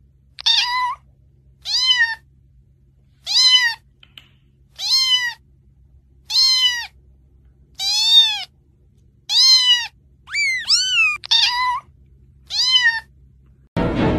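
Grey kitten meowing over and over: about ten short, high calls, each rising and then falling in pitch, roughly one every second and a half. Music starts right at the end.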